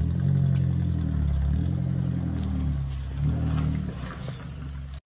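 1946 Morris 8 Series E's small side-valve four-cylinder engine running as the car drives slowly and turns tightly, the engine note rising and falling with the throttle and easing off near the end.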